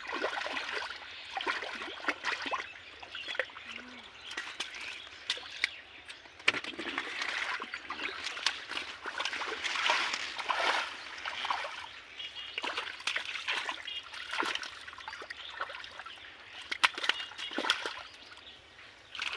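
Shallow muddy water splashing and sloshing irregularly as hands work through it, with many small sharp splashes.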